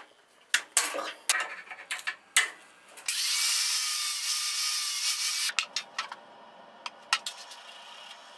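Scattered metal clicks and knocks as the foot peg is handled and taken off, then an angle grinder runs on the aluminum foot peg pad for about two and a half seconds, a loud steady grinding hiss with a faint motor whine that cuts off suddenly, followed by a few light clicks.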